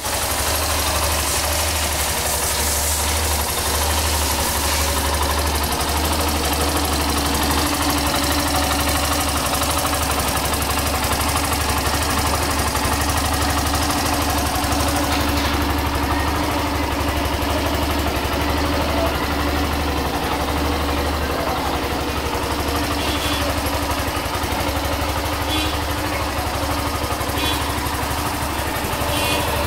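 Yamaha YS125's single-cylinder four-stroke engine idling steadily.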